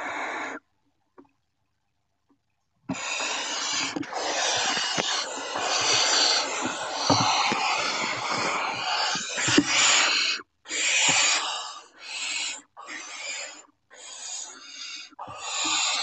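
Barn owl chicks hissing their rasping begging calls. A short hiss at the start and a pause of about three seconds are followed by about seven seconds of unbroken hissing, which then breaks up into a string of shorter hisses.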